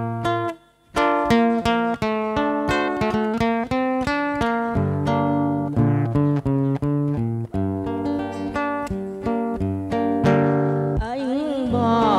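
Acoustic guitar playing a solo introduction of plucked melody notes over bass notes, breaking off briefly about half a second in. Near the end a woman's singing voice comes in with vibrato over the guitar.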